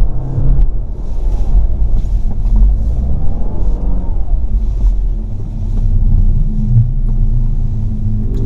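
Mercedes CLA 250 4Matic's turbocharged four-cylinder driving with a heavy low rumble, its pitch rising and falling once around the middle.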